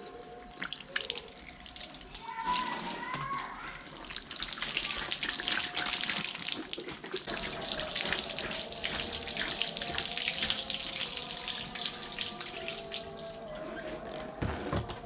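Water running and splashing, building up about four seconds in and easing off near the end: water flushing through as a car battery is rinsed out.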